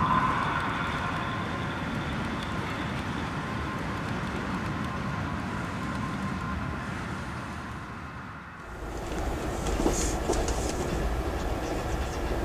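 HO-scale model passenger train rolling along the track, with a steady clattering rattle of wheels on rail. About two-thirds of the way in the sound changes abruptly to a deeper, louder rumble with scattered light clicks.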